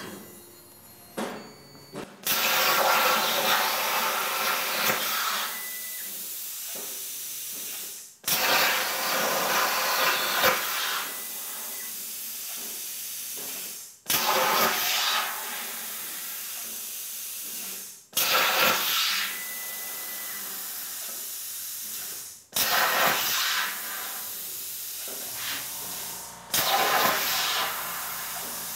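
Hypertherm Powermax 30 XP plasma cutter on a CNC table cutting sheet metal: about six separate cuts in a row, each a hiss that starts loud, drops to a quieter hiss after two or three seconds, then stops abruptly before the next begins.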